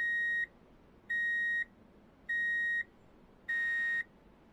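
Electronic backup-alarm-style beeping: a single high tone, each beep about half a second long, repeating evenly a little under once a second, four times. The fourth beep is harsher, with a fuller, buzzier tone.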